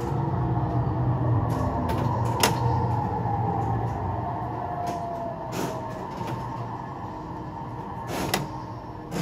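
Driving-simulator audio of an electric train braking to a stop: a low running rumble with a motor whine falling in pitch, fading as the train slows. Several sharp clicks are heard, about a second in and then every few seconds.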